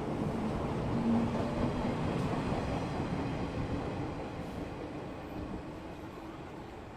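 A train passing on its rails: a steady running noise that fades away over the last few seconds.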